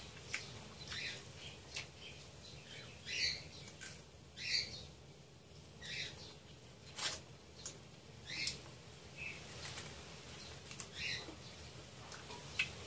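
Close-miked mouth sounds of someone eating chicken feet: wet smacking, sucking and chewing in short bursts about once a second, with a few sharp lip clicks.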